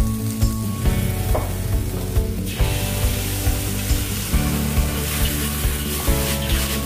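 Seafood stir-fry sizzling in a hot pan. The sizzle grows louder about two and a half seconds in, under background music with a steady beat.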